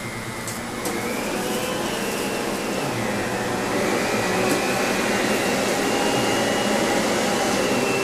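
Miele canister vacuum cleaner running as its floor head is pushed over a mat, a steady rush of air with a high whine. The whine rises in pitch about a second in, dips around three seconds, and the sound grows a little louder from about four seconds in.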